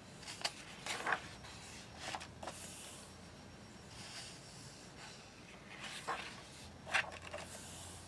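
Paper pages of a coloring book being turned and smoothed flat by hand: soft papery swishes and a few short, sharp flicks, a cluster about a second in and another around six to seven seconds in.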